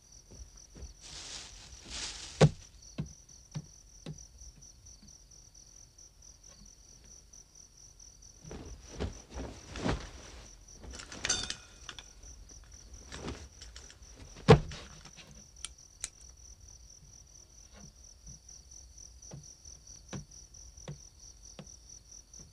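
Crickets chirping steadily in a high, pulsing trill, with a few scattered rustles and knocks; the loudest is a sharp thud about fourteen and a half seconds in.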